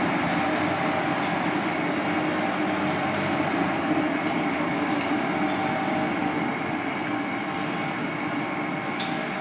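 Ginhong RX-3000L vacuum mixer homogenizer running on test: steady machine noise with several steady tones, and a few faint light clicks.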